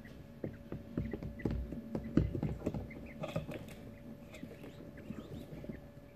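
Young coturnix quail shuffling and scratching about in wood shavings: a run of quick taps and rustles, busiest and loudest about two seconds in, with a few short, soft high chirps.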